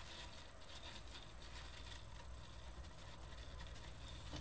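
Faint, irregular rustling and crinkling of wired ribbon being handled and pinched on a wooden peg bow maker.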